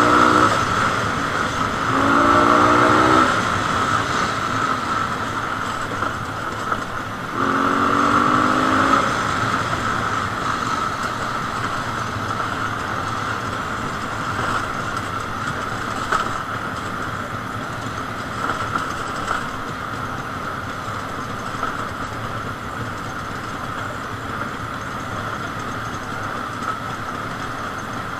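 Jawa 250/353 motorcycle's single-cylinder two-stroke engine, heard from the rider's helmet while riding. It revs up in short rising bursts about two seconds in and again about seven seconds in, then runs more steadily and a little quieter for the rest.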